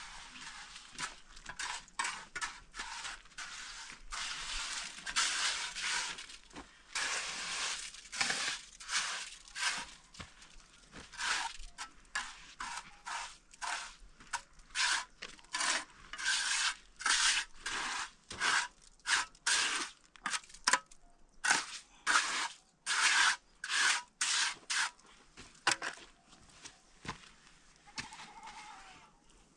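Steel trowel scraping and smoothing wet cement mortar along the top of a concrete-block wall in short, repeated strokes, about one or two a second, with the strokes thinning out near the end.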